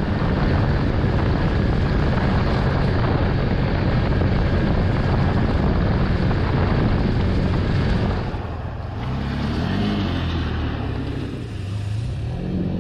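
Side-by-side UTV engine running steadily under way, with tire and wind noise over a gravel trail. About eight seconds in, the sound drops and an engine's pitch rises and falls several times.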